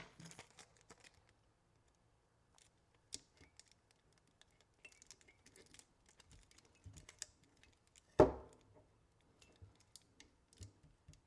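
Hands handling a circuit board and Kapton tape on a workbench: faint scattered ticks and rustles, with one sharp knock about eight seconds in.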